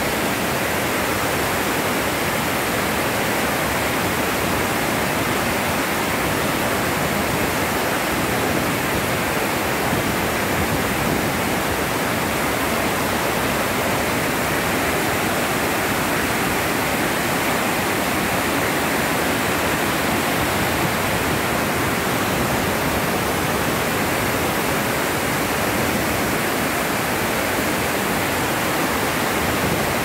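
Overflow water pouring down a sloped concrete dam spillway and foaming over rocks below: a steady rush of falling, churning water.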